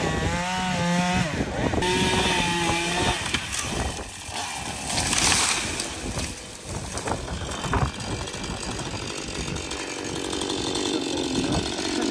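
Husqvarna 440 two-stroke chainsaw running as it finishes the cut through the tree trunk, then the tree crashes down through its branches about five seconds in, followed by crackling and snapping.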